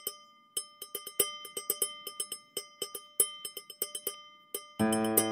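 Opening of a piece of music: quick, irregular tinkling bell-like strikes over a faint held ringing tone. Near the end a full sustained chord comes in.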